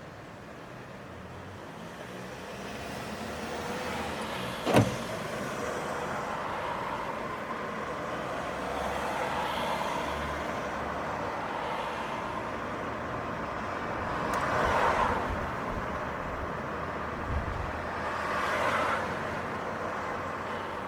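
City street traffic: a steady hum of cars, with two vehicles passing close later on. A sharp knock about five seconds in is the loudest sound.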